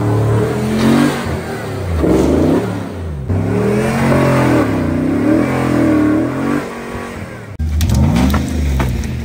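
Modified off-road Jeep's engine revving hard as it is driven up deep snow, the revs climbing and dropping again and again. The sound breaks off abruptly near the end, and another engine revving picks up straight after.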